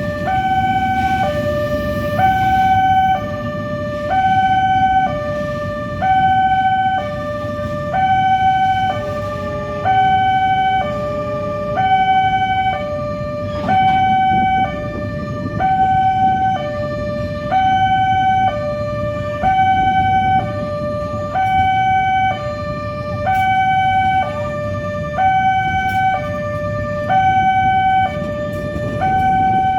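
Railway level-crossing warning siren sounding a two-tone hi-lo wail, switching between a higher and a lower tone about once a second, with road traffic running beneath it.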